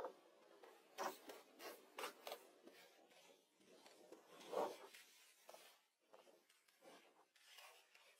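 Faint, scattered scrapes, rubs and light taps from hands working small stones into a miniature stone-house model on a work surface; the loudest scrape comes about halfway through.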